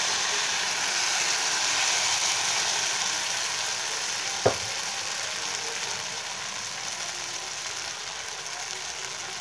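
Gram-flour (besan) batter sizzling in hot oil in a kadai, a steady hiss that slowly dies down as the thin layer sets. A single sharp click about halfway through.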